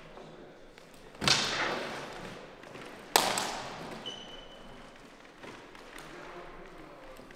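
Two sharp strikes of plastic two-handed training swords (synthetic feders), about two seconds apart, each echoing in the hall.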